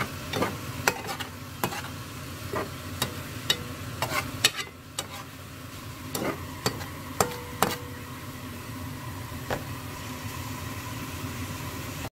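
Squid and vegetables sizzling in a hot pan as they are stir-fried, with a cooking utensil clacking and scraping against the pan many times at an irregular pace.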